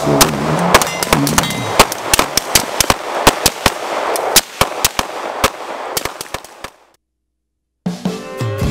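A string of firecrackers going off in quick, irregular cracks that thin out and stop about seven seconds in. Music starts near the end.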